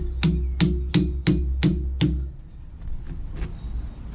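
Hammer striking the steel wedge of a post leg vice in an even series of ringing metal blows, about three a second, which stop about two seconds in, followed by a couple of faint taps.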